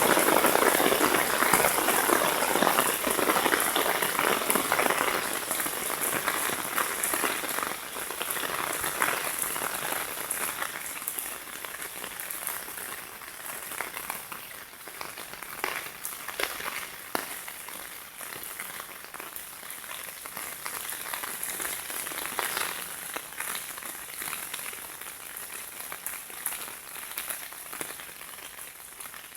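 Heavy rain: a dense hiss of falling water with individual drops striking close by. It is loud at first and gradually grows quieter as the downpour eases.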